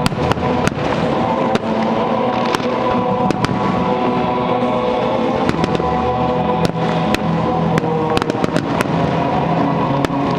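A fireworks display: shells bursting in quick, irregular succession as many sharp bangs and crackles, over continuous music.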